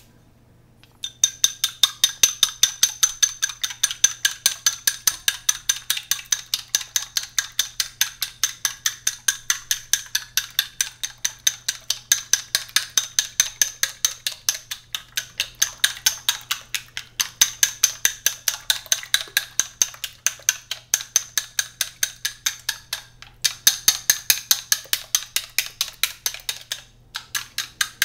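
Eggs being beaten with chopsticks in a glass bowl: fast, even clicking of the sticks against the glass, about four or five strokes a second. It starts about a second in and breaks off briefly twice near the end.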